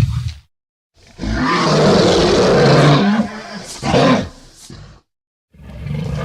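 Custom monster roar sound effects for a gum-beast elephant creature: the tail of one call, then a long roar about a second in with shorter calls after it, and another roar starting near the end.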